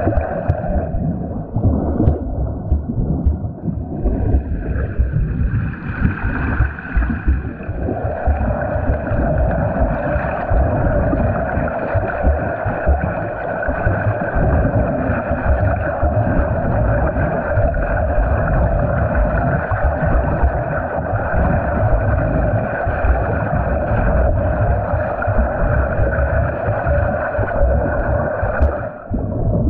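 Water churning and splashing around a swimmer sprinting freestyle, a continuous uneven rumble with a steady hum over it.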